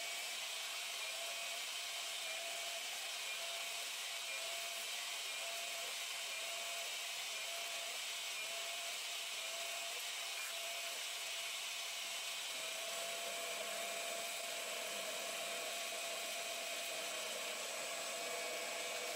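Small CNC-controlled metal lathe running steadily while it turns a small metal part, with a steady high whine from the machine and a faint cutting hiss. A second, slightly lower whine joins about two-thirds of the way through.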